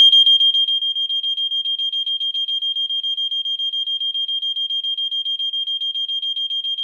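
Gentex hearing-impaired smoke alarm sounding in test mode: a loud, single high-pitched tone that pulses rapidly, several times a second, without a break.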